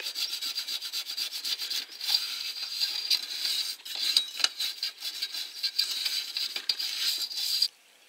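An old toothbrush scrubbing rapidly over the charred wick fibres and metal burner rim of a paraffin heater, sweeping off burnt residue: a fast run of scratchy strokes that stops abruptly near the end.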